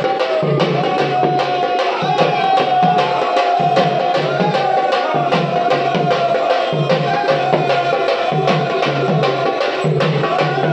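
A barrel drum slung at the drummer's waist beaten in a quick, steady rhythm, its low tone pulsing with each stroke, with a high, wavering melody line held above the beat.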